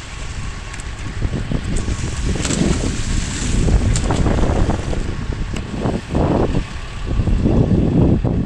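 Wind buffeting the action camera's microphone, an uneven low rumble, with a few light knocks from the camera being handled.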